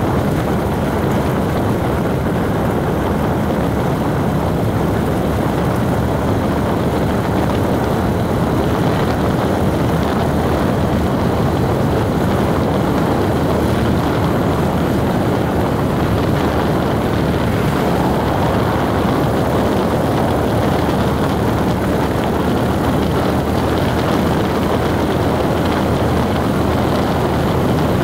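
A vehicle driving at a steady speed: a constant mix of engine hum and road noise with no change in pitch.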